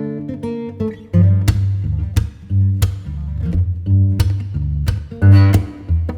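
Background music led by a strummed acoustic guitar with a deep bass line, the strums coming in bursts about twice a second.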